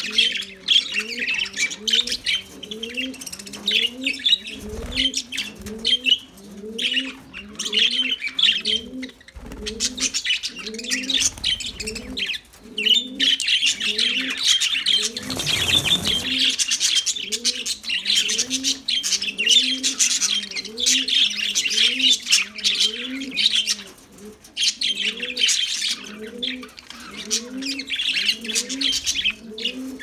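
A flock of budgerigars chattering, with dense overlapping chirps and warbles. Under them runs a low cooing call, repeated evenly about one and a half times a second. A brief rushing noise comes about halfway through.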